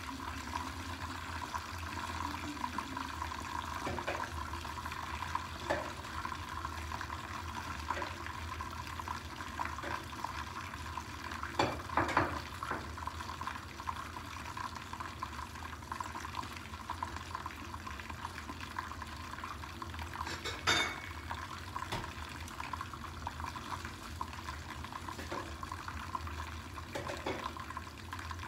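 Fish frying in hot oil under a lid: a steady sizzle with scattered pops and crackles, strongest about twelve seconds in and again about twenty-one seconds in.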